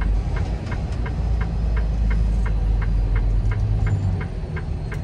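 Semi-truck's diesel engine running at low speed while the truck turns in, with the turn signal ticking steadily at nearly four ticks a second.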